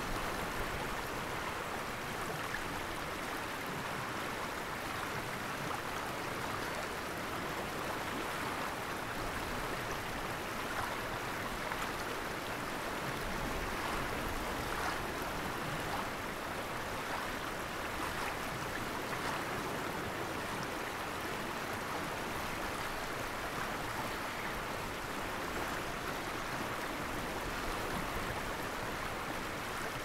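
River water flowing: a steady, even rushing.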